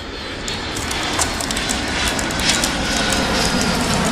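Clear plastic and cardboard packaging of a toy truck set crinkling, crackling and clicking as it is handled and turned, over a steady background noise.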